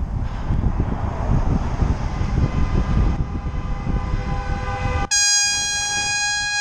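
Horn of a white Ford Explorer SUV honking in a long, steady blast that starts abruptly about five seconds in. Before it there is wind and road rumble on the microphone of a moving bicycle.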